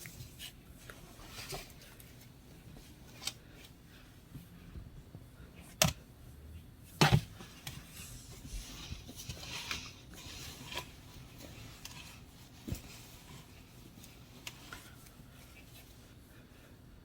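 Shower supplies being handled and set down: scattered light taps, rubbing and rustling, with two sharp knocks about six and seven seconds in, the second the loudest.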